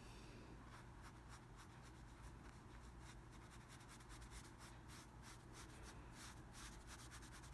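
Faint, repeated soft strokes of a wet ink-painting brush rubbing across hanji paper, working water and green paint outward to blend a gradated wash on a lotus leaf.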